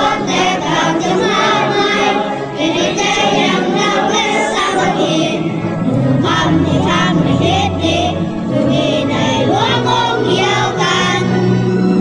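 A choir singing a song over steady instrumental accompaniment.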